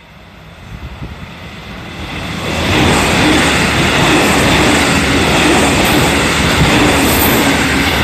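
Electric commuter train passing close by. It rises in loudness over the first few seconds, then its wheels rumble and clatter loudly on the rails as the cars go past.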